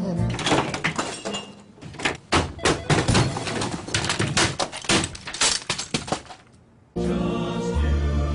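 A rapid, irregular run of crashes, thuds and breaking sounds, things being smashed and knocked about, that tails off about six and a half seconds in. Jingle music comes back near the end.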